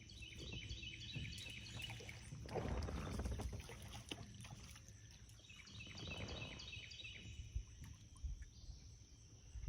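Water sloshing against a boat, swelling twice, while a bird in the background sings two runs of quick trilled notes.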